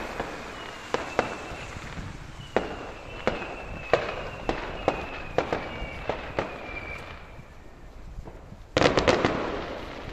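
Fireworks going off: scattered sharp bangs with a few faint high whistles, then about nine seconds in a loud, dense cluster of crackling bangs lasting over a second.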